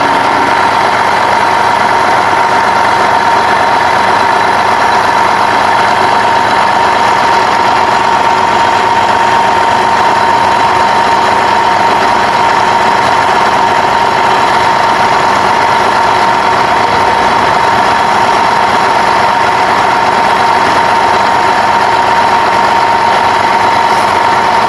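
Sound of a truck engine idling, laid over the toy footage. It is loud and steady, with a constant tone running through it and no revving or change.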